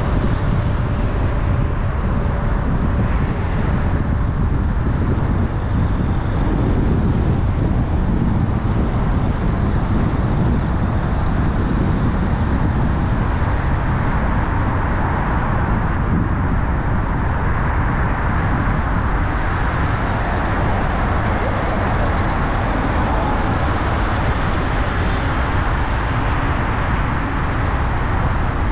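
A car driving through city traffic: steady engine hum and tyre-on-road noise, heaviest in the low end, with no sudden events.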